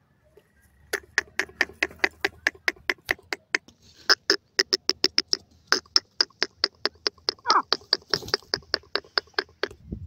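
Grey francolin (teetar) calling in a fast run of short, sharp clicking notes, about six a second, with a couple of brief pauses.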